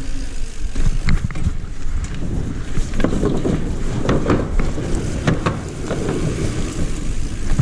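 Mountain bike being ridden fast over rough ground: wind rushing over the microphone, with tyre noise and irregular rattles and knocks from the bike over bumps, busiest about halfway through.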